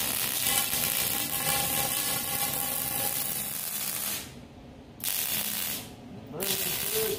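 Wire-feed welder arc crackling and hissing while welding steel tubing: one long bead of about four seconds, a pause, then two shorter bursts near the end.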